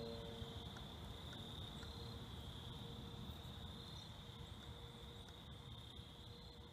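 Faint, steady high-pitched chorus of crickets, with a low rumble underneath.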